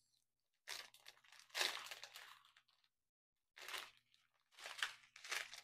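Small clear plastic bags of square diamond-painting drills being handled, crinkling in several short bursts.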